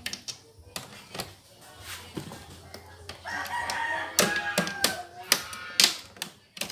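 Sharp plastic clicks and taps as a laptop's back cover is pressed and snapped into place. A rooster crows in the background about three seconds in, one call lasting a second or two.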